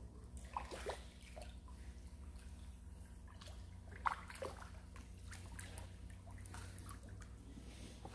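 Hooked fish splashing and sloshing at the water surface as it is played on the line: scattered small splashes and drips, the sharpest about four seconds in, over a steady low hum.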